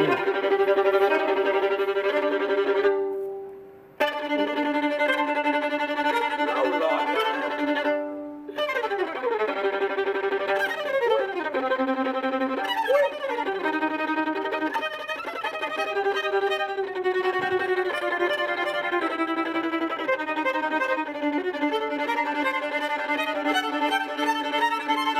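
Solo violin played with the bow: long held notes and melodic lines, with sliding pitch glides in the middle. The playing breaks off briefly twice, about three and eight seconds in, and then carries on.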